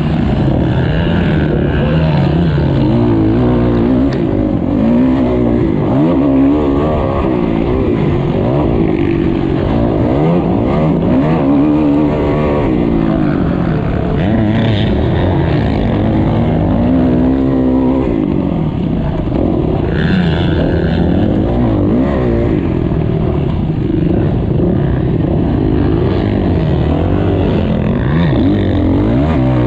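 Motocross bike engine heard close up from onboard, revving hard and dropping back over and over as the rider races, its pitch rising and falling every second or two. Other motocross bikes run close alongside at times.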